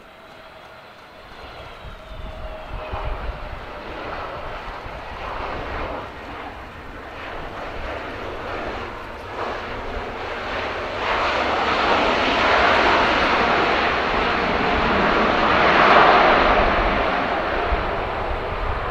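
Airbus A320neo jet engines on landing: a whine falling in pitch early on, then a rising rush of jet noise from the middle of the landing roll, loudest shortly before the end, typical of reverse thrust after touchdown.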